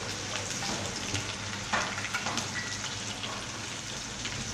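Sliced onions sizzling steadily as they fry in hot mustard oil in a pan, with a couple of short clicks around the middle.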